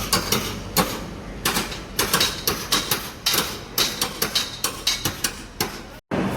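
Construction-site work noise: an irregular run of sharp knocks and clanks, several a second, like hammer blows on metal and timber, over a low background rumble.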